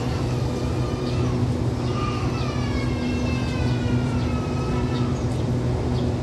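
Diesel-hauled passenger train standing at the platform, its engines running with a steady low hum. From about two seconds in, a drawn-out tone slides slowly down in pitch over it.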